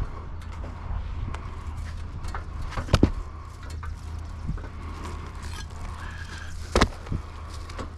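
Scattered knocks and clicks over a steady low rumble, with two sharp, loud knocks about three seconds in and again near the end.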